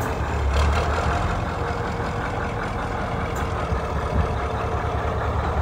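Scania truck's diesel engine running steadily at low speed as the cut-down tractor unit rolls slowly, a low, even sound from its single upright exhaust stack.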